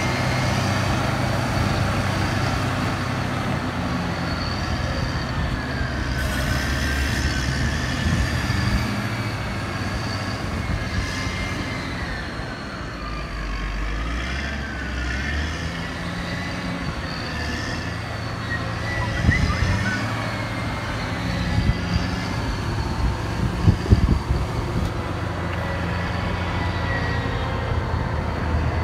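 Caterpillar motor grader's diesel engine running steadily as the grader works the street surface. A few sharp knocks stand out about two-thirds of the way through.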